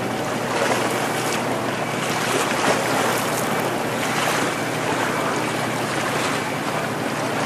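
Steady wind and sea waves washing against the rocks of a breakwater, with wind noise on the microphone.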